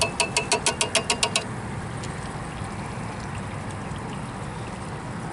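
A quick run of about eight metallic taps, roughly six a second, on the rim of an enamel stock pot, ending about a second and a half in. After it, a steady, even noise continues that fits the propane fish-fryer burner running under the pot.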